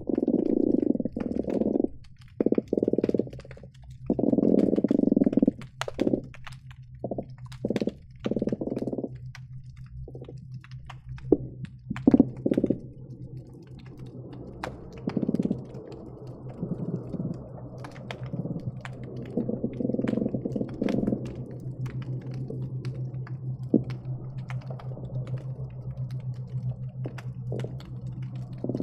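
Croakers calling underwater, picked up by a hydrophone: rumbling, rapidly pulsed croaks in bursts of about half a second to a second, many in quick succession for the first nine seconds, then sparser. They sit over a steady low hum, with scattered sharp clicks throughout.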